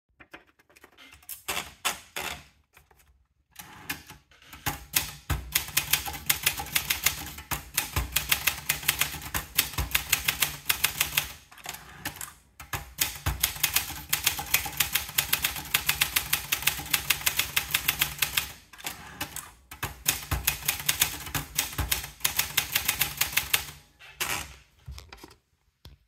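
Olympia Traveller portable manual typewriter. A few scattered clicks come first as the paper is wound in. Then come rapid key strikes, several a second, in three long runs of typing separated by two short pauses.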